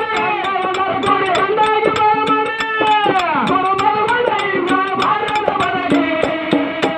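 Male voice singing a dollina pada, a Kannada devotional folk song, with hand-drum strokes at about four a second. Near the middle the held sung note slides down in pitch.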